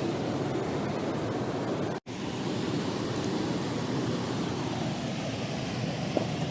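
Steady rushing noise with no distinct events, cut off for an instant about two seconds in where two clips are joined.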